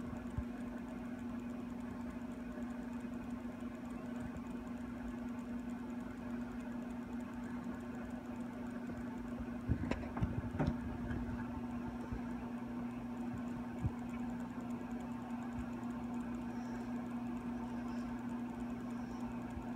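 A steady low hum with a single even pitch, with a few soft knocks about halfway through.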